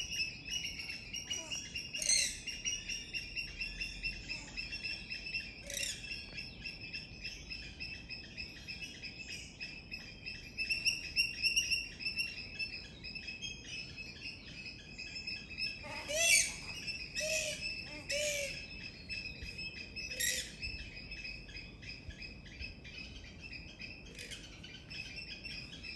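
Grey-headed swamphen calling: a scattering of short calls, with a louder run of them about two-thirds of the way through. A steady, high, rapidly pulsing chirring goes on underneath.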